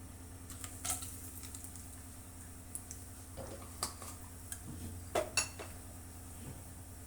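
Kitchen utensils and dishes clinking and knocking, scattered irregularly, with two sharper knocks close together about five seconds in, over a steady low hum.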